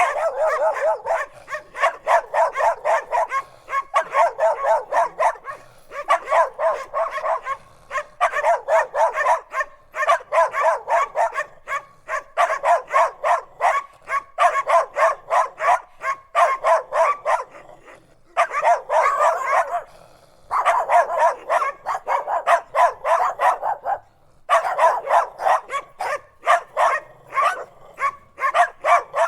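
Dogs barking rapidly and continuously, several barks a second in runs of a second or two with short pauses between.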